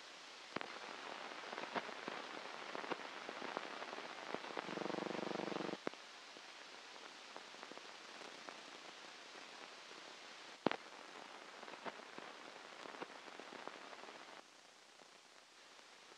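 Old film soundtrack noise: steady hiss with scattered crackles and pops. A short buzzing tone comes about four and a half seconds in, and a single sharp pop near eleven seconds. The hiss drops lower near the end.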